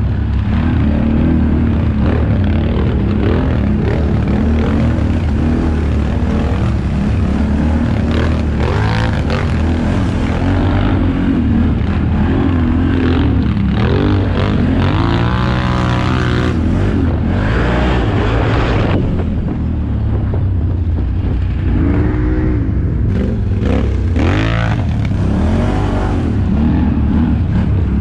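ATV engine running under load on a rough trail, a constant low rumble whose pitch rises and falls with the throttle, with a run of revs near the middle and a few more past two-thirds of the way through.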